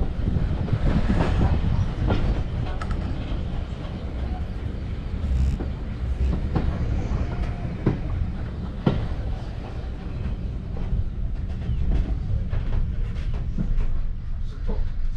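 Heritage railway passenger coach running along the line: a steady low rumble with the clickety-clack of wheels over rail joints and scattered sharp clicks, heard at an open window.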